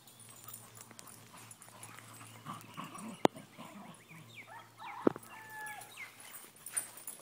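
Two puppies making faint whimpers and yips as they play, with two sharp knocks about three and five seconds in.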